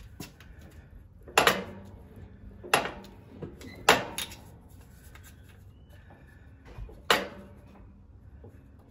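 Farmall 450 brake pedal and linkage worked by hand, giving four sharp metal clanks with a short ring after each, the last after a longer pause.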